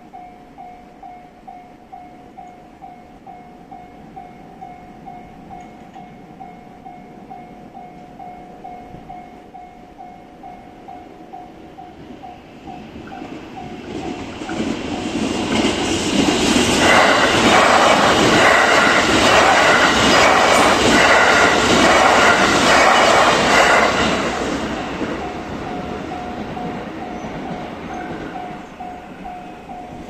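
Japanese railway level-crossing alarm ringing in a steady repeating beat. About halfway through, a train approaches and passes, loud for about eight seconds with a rapid rhythmic clatter of wheels that drowns the bell, then fades away as the bell carries on.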